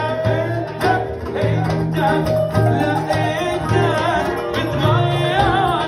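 Live band playing an Arabic song: a male voice sings wavering, ornamented lines over acoustic guitar and keyboard, with a steady repeating bass pattern.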